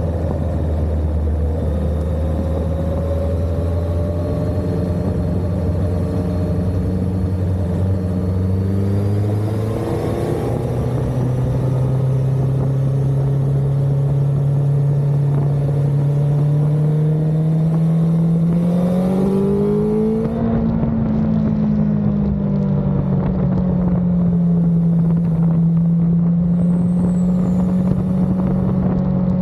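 Suzuki GSX-S1000GX's inline-four engine running under way. The engine note is steady at first, steps up in pitch about a third of the way in and climbs slowly, then rises again about two-thirds through before levelling off.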